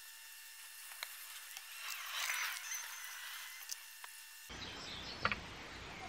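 Faint clicks and a soft scraping rustle from a spoon spreading topping onto grilled corn on the cob, over a quiet, steady background hiss. The background changes abruptly about four and a half seconds in.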